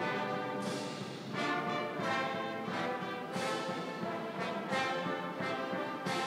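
A brass band playing a slow ceremonial piece of sustained chords, with a new chord coming about every second.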